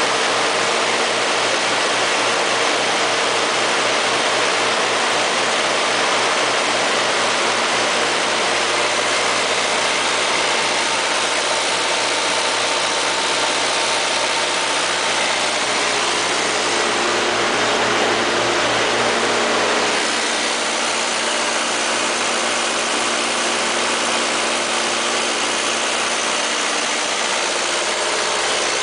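Katolight diesel generator set's John Deere four-cylinder diesel engine running steadily at constant governed speed, heard with the enclosure doors open. It swells slightly about two-thirds of the way through, then settles a little quieter.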